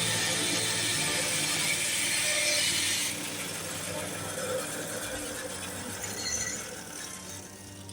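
Sawmill running and cutting through a pine slab: a dense cutting noise that drops away about three seconds in, leaving the mill running quieter.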